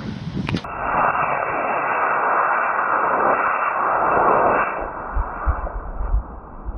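Model rocket motor burning with a loud, even rushing hiss for about four seconds, then fading; low gusts of wind on the microphone follow.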